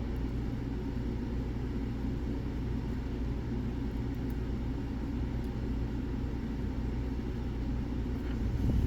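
A steady low rumbling hum, with a few faint light ticks from a lock pick working the pins of a pin-tumbler lock.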